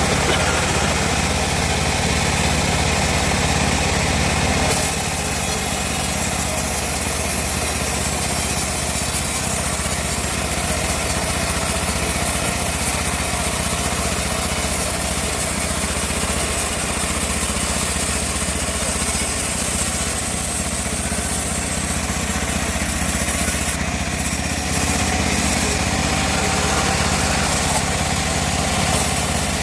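Homemade bandsaw running with a steady drone while its blade cuts through a teak log; the cutting hiss grows louder about five seconds in.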